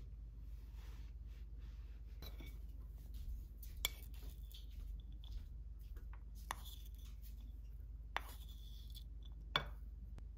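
A wooden spoon scooping chopped onion into a ceramic bowl, giving a few scattered sharp taps and clinks against the bowl's rim. A low steady hum runs underneath.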